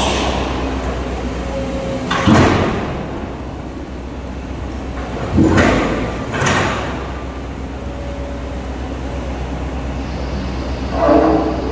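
Komatsu PC200 excavator's diesel engine running steadily while its bucket pushes against a steel-plate structure being demolished. Loud metal crashes and scraping come about two seconds in and twice around six seconds in, and a pitched metal grinding near the end.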